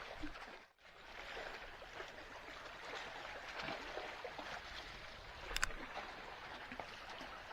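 Sea water washing and lapping against the rocky shore, a steady watery rush that briefly cuts out just under a second in, with one short sharp click about five and a half seconds in.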